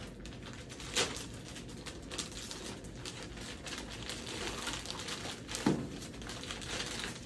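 Crinkling of clear plastic sterile supply packaging being handled and peeled open, with two sharper crackles, about a second in and again later.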